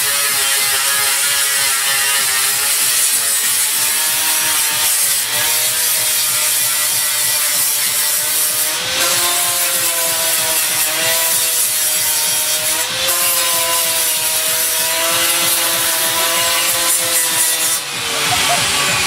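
Angle grinder working steel bodywork: a harsh, continuous rasp with a motor whine that rises and falls as the load changes.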